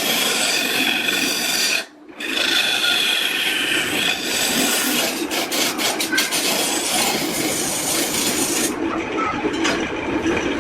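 Wood being worked with an abrasive tool: a loud, continuous scraping noise. It cuts out briefly about two seconds in, and its sharpest hiss drops away near the end.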